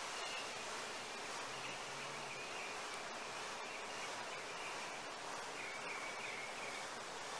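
Steady outdoor ambience: an even hiss of leaves and insects, with a faint, thin high tone that comes and goes a few times.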